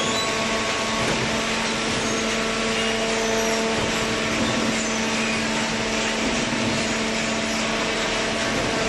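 Hydraulic paper baler running: a steady machine drone with a constant whine from its pump motor.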